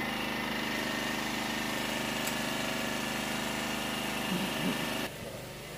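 A steady engine hum at an unchanging pitch, cutting off suddenly about five seconds in.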